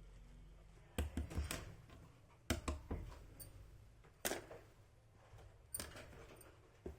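Small plastic toy pieces from a miniature doll set clicking and tapping as they are handled and set down: short clusters of sharp taps, six or so, spread over several seconds.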